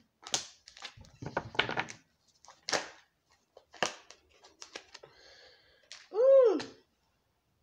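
A deck of tarot cards being shuffled by hand: a run of quick snapping and riffling strokes, with a few softer rustles between them. Near the end comes one short high call that rises and falls in pitch, the loudest sound here.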